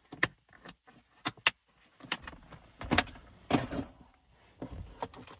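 A series of sharp clicks and knocks from hard objects being handled, thickest around the middle of the stretch.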